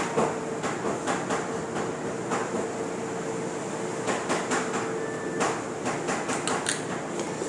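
Noodle soup being eaten with a spoon and chopsticks from a bowl: scattered short clicks and taps, thickest in the second half, over a steady room hum.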